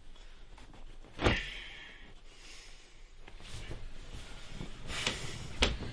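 Bedsheets and clothing rustling as a man gets out of bed and pulls on his trousers, with a sharp thump about a second in and another near the end.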